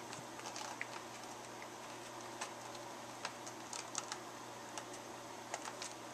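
Fingers working the pages and tabs of a magazine binder: scattered light clicks and ticks, several close together about four seconds in and again near the end, over a steady faint hiss.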